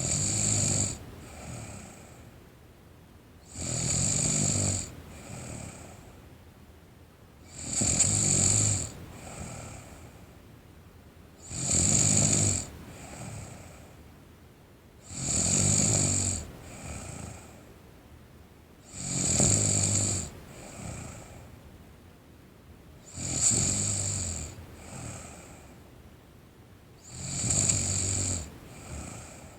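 A sleeping teenage girl snoring steadily, about one snore every four seconds, each loud snore followed by a shorter, softer breath sound.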